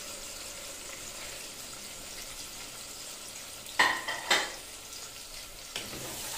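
Sliced onions sizzling steadily in hot oil in a pressure cooker, with two sharp metallic clanks about half a second apart near the middle.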